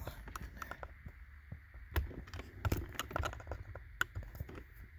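Irregular small plastic clicks and taps from handling the climate control backlight bulbs and their sockets, with a few sharper clicks around two, three and four seconds in.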